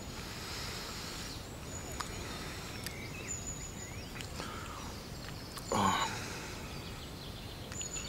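Quiet open-air background noise with a few faint, short bird chirps, and a single brief exclamation about six seconds in.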